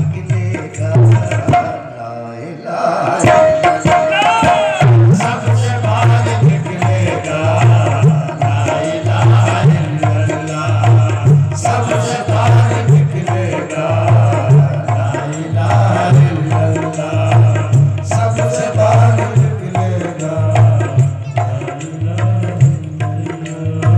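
Instrumental passage of Sufi devotional qawwali-style music: hand drums keep a steady rhythm under a melody, without singing. The music drops briefly about two seconds in and then carries on.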